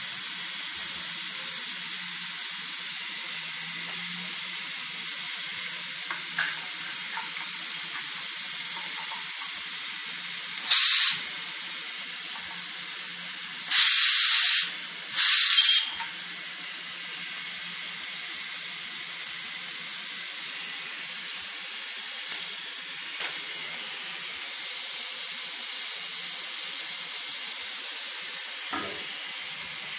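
Stainless steel pressure cooker hissing steadily as steam escapes from its lid valve. Near the middle come three louder blasts of steam, each about a second long, as the valve lever is pressed with a fork to let pressure out.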